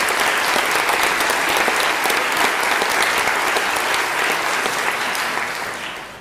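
Audience applauding, a dense clatter of many hands clapping that fades away over the last second or so.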